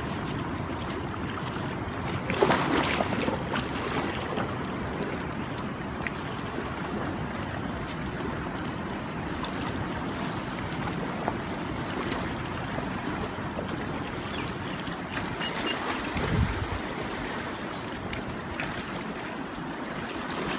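Steady rushing wash of ocean surf with wind on the microphone. A louder rustle comes about two and a half seconds in, and a short low thump near the end.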